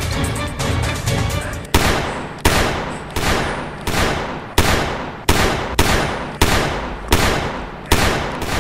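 Music, then from about a second and a half in, a pistol firing about ten shots in steady succession, roughly one every 0.7 seconds, each with a short ringing tail.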